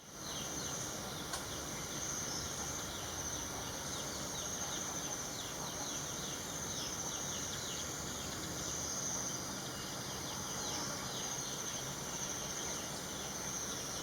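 Steady high-pitched drone of insects, crickets or cicadas, over rapid runs of short, downward-sliding chirps from small birds through the middle stretch.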